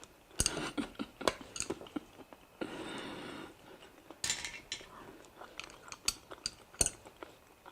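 Eating at the table: utensils and clam shells click and clatter against a dish in separate sharp strokes, with a second-long noisy rush about two and a half seconds in.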